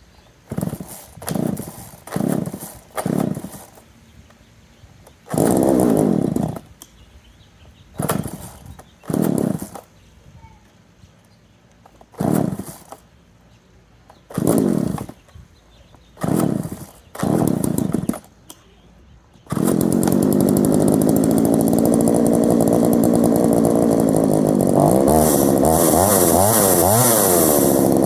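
Poulan 3400 Counter Vibe two-stroke chainsaw being pull-started: about ten short bursts, each dying away in falling pitch. About 19 seconds in it catches and runs steadily. From about 25 seconds the engine speed rises and falls repeatedly as the throttle is worked.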